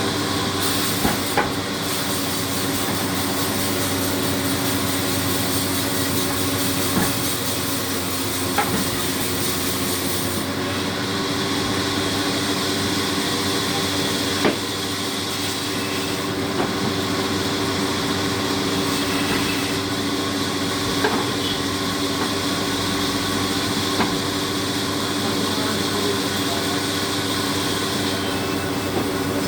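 A tree-cutting machine running steadily with a constant mechanical hum, broken by a few sharp knocks.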